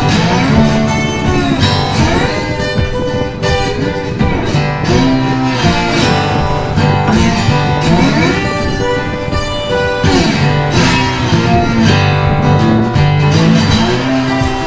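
Background music led by guitar, with a steady rhythm.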